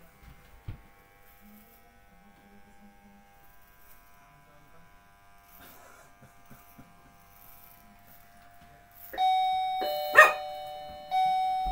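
Faint hum of electric hair clippers. About nine seconds in, a loud doorbell chime rings out: several ringing tones that die away and are struck again about a second and two seconds later, with one short sharp noise among them.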